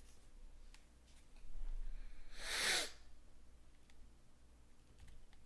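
A single short, noisy blast of breath from a person, sneeze-like, about two and a half seconds in. Faint clicks of trading cards being handled can be heard around it.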